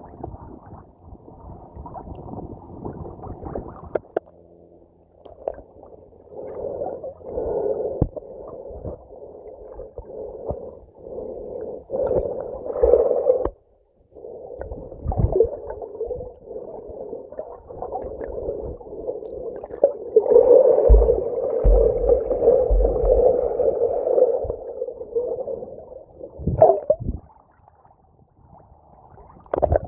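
Muffled water sloshing and gurgling around a camera dipping under and back up through the lake surface, with scattered knocks from handling. Nearly all of it is low and dull, with short quiet gaps about halfway through and near the end.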